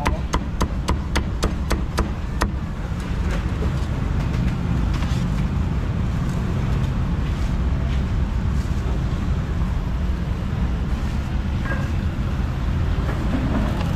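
Meat cleaver chopping through crispy roast pork belly onto a thick wooden chopping block: quick, even knocks about three a second that stop about two and a half seconds in. Under it and after it, a steady low rumble of street traffic.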